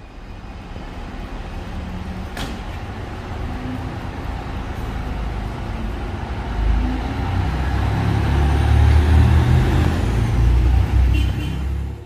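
DSB IC3 diesel multiple unit running past close by, a steady rumble of engines and wheels that grows louder, strongest in the second half, then cuts off suddenly.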